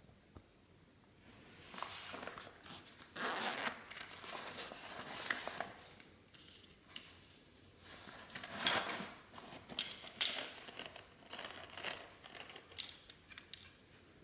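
Small objects being handled by hand: an irregular run of rustling, scraping and light clicks, with a few sharper clicks about nine and ten seconds in.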